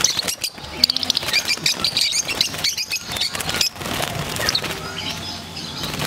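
A cage of lovebirds chirping and chattering, many short high calls overlapping, busiest in the first half.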